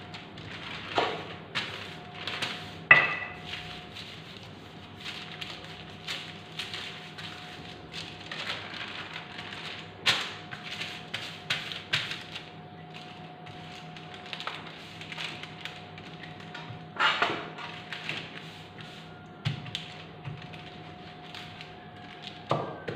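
Wooden rolling pin rolling out shortcrust pastry dough on baking paper: repeated rolling strokes with paper rustling and irregular knocks as the pin and paper are moved, over a faint steady hum.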